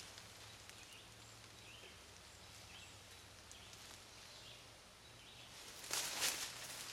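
Quiet woodland ambience with faint, scattered bird chirps. About six seconds in comes a brief, louder rustle of movement as nylon camping gear is handled.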